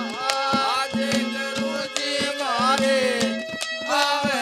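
Instrumental interlude of live folk devotional music: a hand drum beats a steady rhythm under a melody line that slides and bends in pitch, over a steady held drone.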